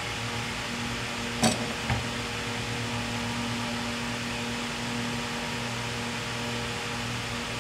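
Steady mechanical hum in a small workshop, with two light clicks about a second and a half in, less than half a second apart, from things being handled on the workbench.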